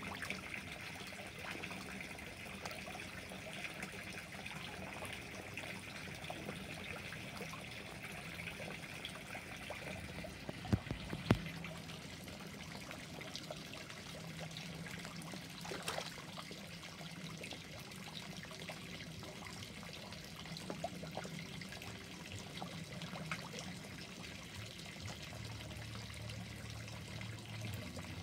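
Pond water trickling steadily, with small pops and splashes from koi and goldfish taking floating pellets at the surface. A couple of sharp knocks come about eleven seconds in.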